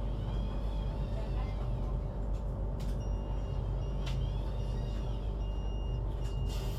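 Hess BGT-N2D trolleybus running, with a steady low rumble and electrical hum and a faint high whine that rises and falls twice. Short high tones and a few clicks come in the second half.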